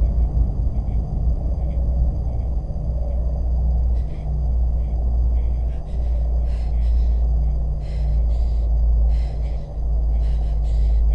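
Low, steady rumbling drone of a horror film's sound design. From about four seconds in it is joined by faint, short, irregular hissy sounds.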